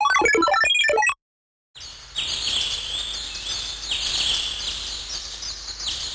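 Samsung SGH-T500 ringtones: a polyphonic ringtone melody cuts off about a second in, and after a short gap a nature-sound ringtone starts, with repeated high bird chirps over a steady hiss.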